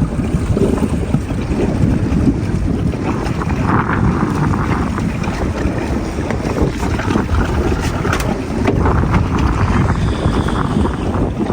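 Wind buffeting the microphone on a boat at sea, a steady low rumble.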